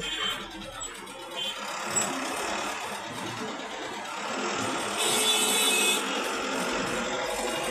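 Dense city road traffic heard from a slowly moving vehicle, engines running all around. About five seconds in, a brief high-pitched sound stands out for about a second.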